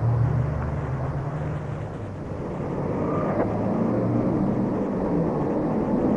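Steady low mechanical rumble, like engine noise, with a noisy hiss over it and low humming tones that shift slightly in pitch.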